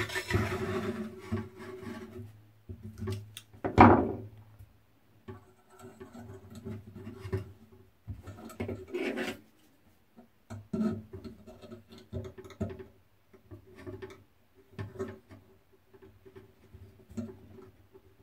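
Thin steel wire being bent and wound by hand with pliers on a metal jig: irregular scraping, rubbing and clicking as the wire turns, with a faint metallic ringing, and a sharp clack about four seconds in.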